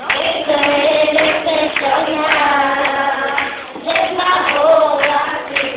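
A group of voices singing together in church, with hand claps falling along with the song.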